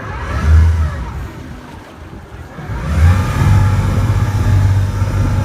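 Motorboat engine revving up twice: a short surge about half a second in, then a longer one from about three seconds in that is held, with wind and water noise underneath.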